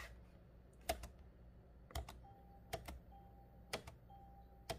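Faint clicks about once a second as the laptop's volume button is pressed, and from about two seconds in a faint short beep about once a second: the volume-change ding.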